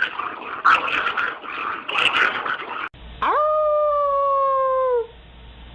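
A stretch of noisy background sound with scattered clicks, then a dog gives one long howl: it rises quickly, holds for about two seconds and sags slightly in pitch at the end.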